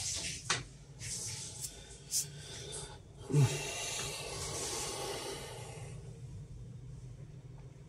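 Handling noises on a tabletop: a few sharp clicks, a louder knock about three and a half seconds in, then a couple of seconds of rustling that fades out.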